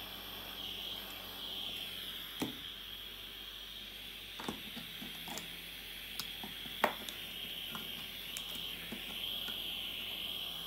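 Butane-fired soldering iron burning with a steady high hiss, with a few sharp clicks of tools against the circuit board about 2.5, 4.5 and 7 seconds in, the last one the loudest.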